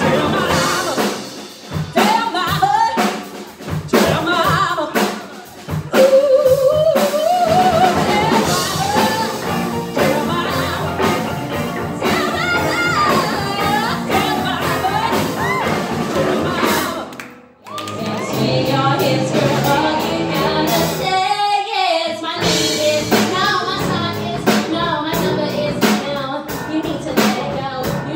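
Female lead vocalist singing live with a rock band of drums, electric bass, electric guitars and keyboard, first a bluesy soul number. About 17 s in the music cuts out briefly and a new pop song starts, the band playing before the voice comes back in.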